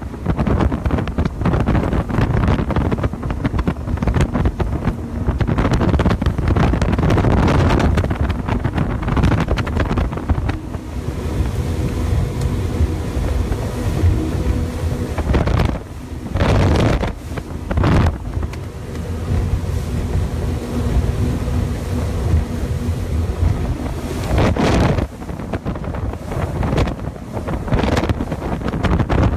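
Wind buffeting the microphone aboard the MAKO 414 CC center-console boat running at about 45 mph, over the drone of its outboard engines. The engine drone comes through steadily for a stretch in the middle, broken by a few loud gusts.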